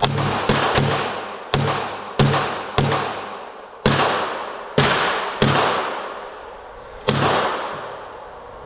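Pistol gunfire in an indoor range: about ten sharp 9mm shots at uneven spacing, each with a long echoing tail. The first few come from the red-dot pistol being fired slowly in a group drill, and the later shots, after it has been set down, come from neighbouring lanes.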